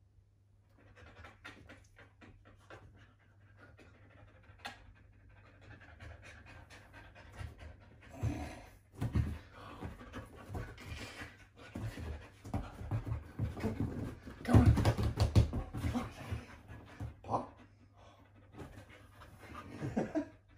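Siberian husky panting, faint at first, then louder and more irregular from about eight seconds in as she moves about and jumps up, with the loudest stretch a few seconds later.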